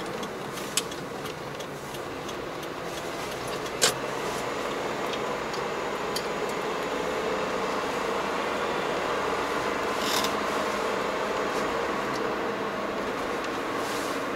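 Steady road and tyre noise inside a moving car's cabin, with a sharp click about four seconds in and a few fainter clicks and creaks.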